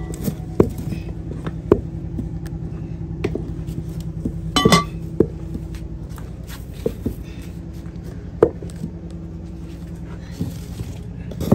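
Wooden spoon knocking and scraping against a metal saucepan as thick maize-flour mash is stirred, in scattered sharp taps. About halfway through comes a louder cluster of metallic clanks with a brief ring. Under it all runs a steady low rumble.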